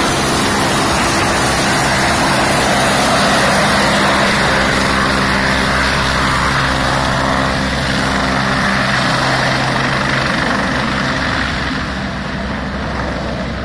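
Helicopter taking off and flying away: loud, steady rotor and engine noise with a low hum, fading as it draws off near the end.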